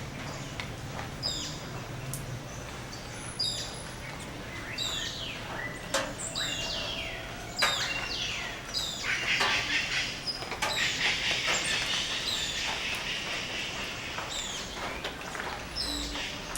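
Dawn chorus of tropical rainforest birds: a high call sliding downward repeats about every second, with other calls around it and a dense burst of chattering in the middle.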